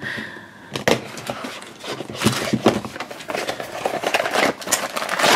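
Handling noise from a small cardboard blind box being picked up and its top flap pulled open: a string of short clicks, taps and rustles of the cardboard, with a small vinyl figure set down on the table near the start.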